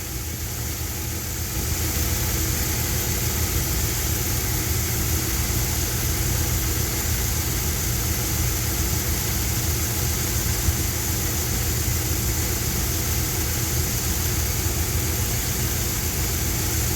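1973 Dodge D100 pickup's engine idling steadily, getting a little louder about a second and a half in.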